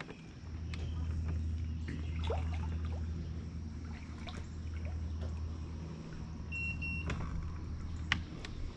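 Electric trolling motor on a bass boat running with a steady low hum, starting about half a second in and stopping near the end. Two short high electronic beeps sound about two-thirds of the way through, among a few light clicks.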